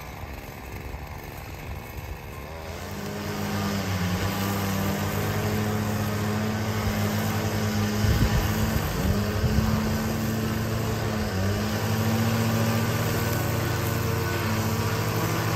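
String trimmer running steadily as it edges grass along a concrete sidewalk. It gets louder about two and a half seconds in, and its pitch wavers briefly a couple of times as the line bites into the grass.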